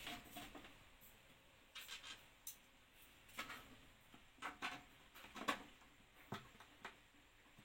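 Scattered light clicks and taps of a screwdriver and screws against a PC case's metal frame as a power supply is screwed in.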